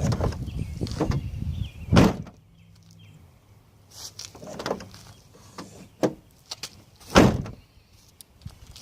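The liftgate of a 2007 Ford Expedition EL swings shut with a loud slam about two seconds in, followed by a few light knocks and a second loud thump about seven seconds in. The latch is not catching securely, which leaves the gate loose and vibrating.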